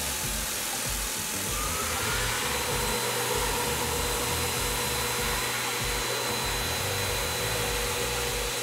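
Tormach 1100M CNC mill cutting an aluminum part with an end mill: a steady rushing hiss from the coolant nozzles over the spindle's faint whine. A short rising whine comes about a second and a half in.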